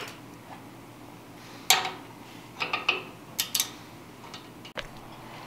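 Wrench clinking on the metal fittings of an old oil burner's pump assembly as a nut is worked: a few sharp metallic clicks, irregularly spaced, the loudest about a second and a half in.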